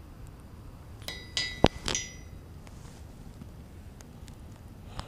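A quick run of sharp metallic clinks and knocks about a second in, some ringing briefly, with one sharp knock louder than the rest, from metal fishing tackle handled while a small fish is unhooked.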